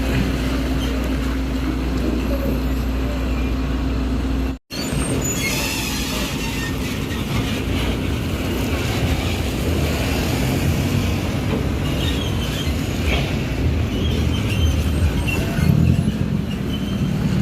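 Heavy diesel engines running hard, a steady low drone with clatter and hiss. The sound cuts out for a moment about four and a half seconds in, then goes on with more hiss and rattle and a deeper drone near the end.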